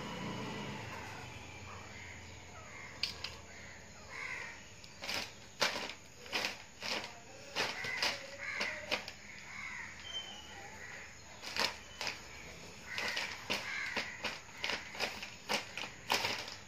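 Plastic bag crinkling and rustling in quick, irregular bursts as kittens paw at it and crawl inside it.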